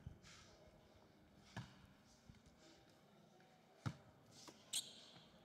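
Basketball dribbled on a hardwood court: a few faint, widely spaced bounces.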